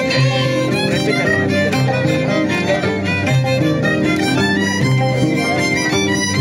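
Violin playing an Andean dance tune over a steady, repeating bass line.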